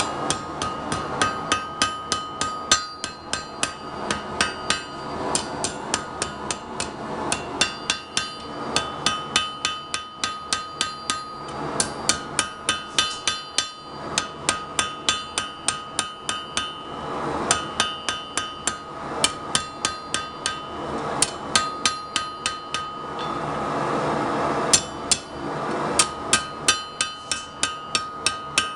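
Hammer blows forging a hot steel bar into a knife blade: runs of quick, ringing strikes, roughly two to three a second, broken by several short pauses in which a steady rushing noise is heard.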